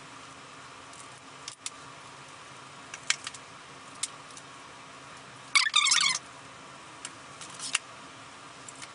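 Light handling clicks and taps, with a short scratchy scrape a little past halfway that is the loudest sound: a hobby knife cutting a slit in the foam wing for a control horn.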